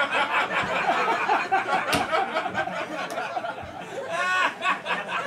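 Audience laughing, many voices at once, with a single sharp knock about two seconds in.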